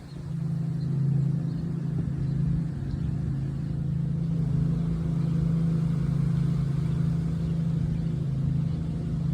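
A steady low motor rumble that begins abruptly and holds even throughout.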